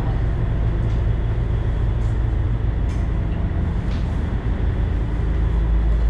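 Steady low drone of a lake cruise boat's engine, heard from inside the passenger cabin, growing slightly louder near the end, with a few faint ticks.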